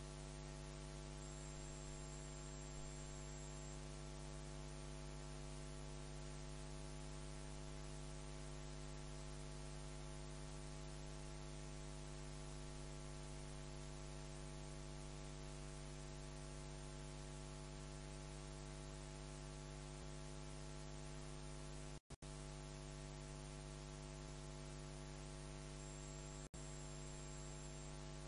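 Steady electrical mains hum with hiss in the audio line, a low buzz with many overtones, cutting out twice for an instant near the end.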